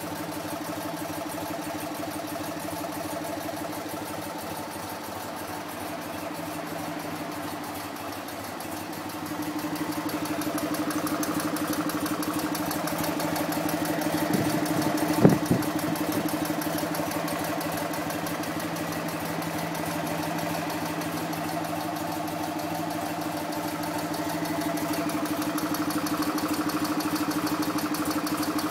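1958 BMW R50's 494 cc flat-twin engine, freshly restored and on its first run, idling steadily; it gets a little louder about a third of the way in. A single sharp pop about halfway through.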